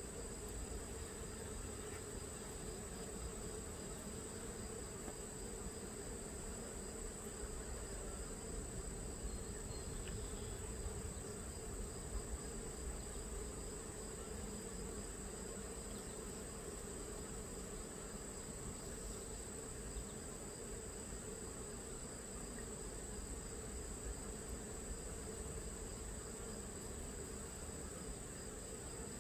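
Steady hum of many honey bees from an opened Langstroth hive.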